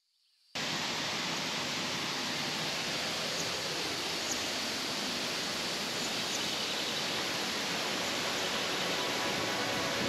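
Steady rush of water from a waterfall and mountain stream, an even hiss with no rhythm, starting about half a second in.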